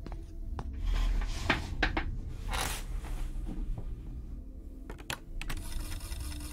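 Scattered sharp clicks and knocks, with a few short scraping or rustling sounds, as objects are handled, over a low steady hum.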